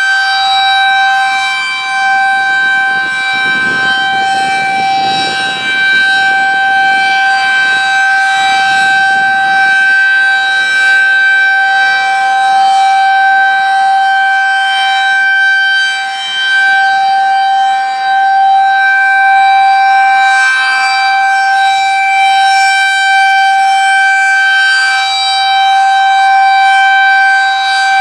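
Federal Signal 2001-SRN rotating outdoor warning siren sounding a steady alert tone during a test. As the siren turns at about 2.5 RPM, the loud steady wail slowly swells and dips.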